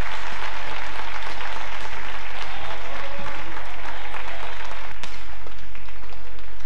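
Arena crowd applauding a won point, the applause dying away about five seconds in. A single sharp tap is heard as it fades.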